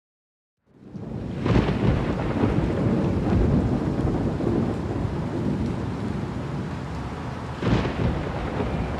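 Rain and thunder fading in from silence: steady rain with two louder claps of thunder, one about a second and a half in and one near the end.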